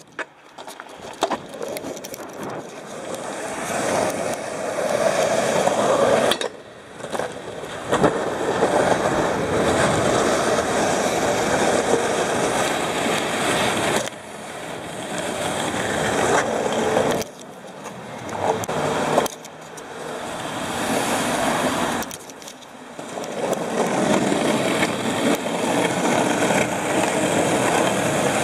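Longboard's urethane wheels rolling fast over smooth concrete: a steady rolling rush that swells and fades, and breaks off suddenly several times.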